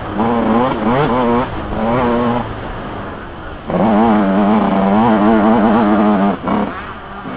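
Yamaha YZ125 two-stroke single-cylinder motocross engine revving hard in short surges, easing off briefly before the middle, then held high for about two and a half seconds before backing off near the end.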